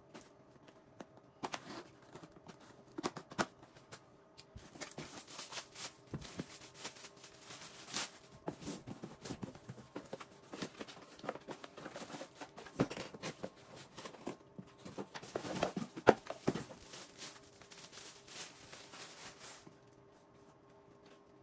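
Packaging being handled during an unboxing: cardboard boxes opened and moved, plastic wrapping rustling and crinkling, and scattered clicks and knocks as plastic parts are handled and set down on a carpet. The rustling is busiest about six to nine seconds in and again around fifteen to seventeen seconds.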